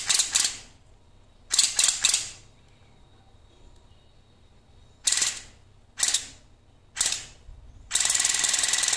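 Cordless water flosser's pump running and spraying a jet into a plastic cup, with a fast rattling buzz. It comes in short bursts about a second apart, then runs steadily for the last second.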